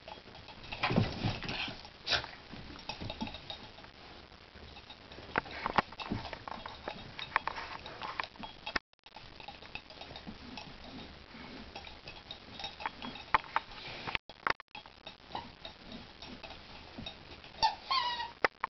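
Two Basenjis rummaging in a dog bed and tearing at a gutted plush monkey toy: scattered clicks and rustles. Near the end comes a brief high-pitched wavering squeal.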